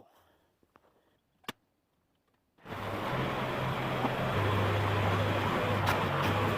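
Near silence with a single faint click, then about two and a half seconds in, the John Deere 310B backhoe's diesel engine cuts in abruptly, running steadily with a low hum under a loud, even noise.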